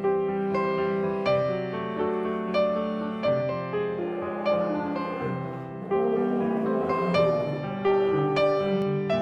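Gentle piano music, a new note or chord struck about every two-thirds of a second.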